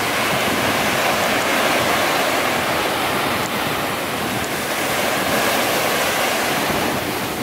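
Small surf waves breaking on a sandy beach and washing up the shore: a steady rush of white water.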